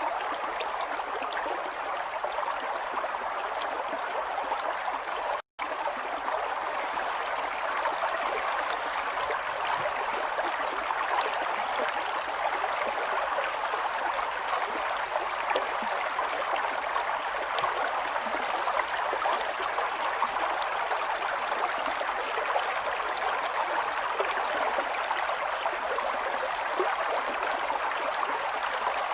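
Flowing water running steadily, an even rushing trickle, cutting out for an instant about five seconds in.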